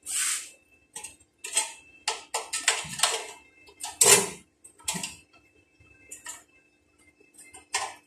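Steel pieces being handled, set down and clamped with locking pliers on a concrete floor: a string of irregular light metallic clinks and clatters, busiest about two to five seconds in, over a faint steady hum.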